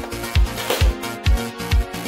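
Electronic background music with a steady drum beat, a little over two beats a second.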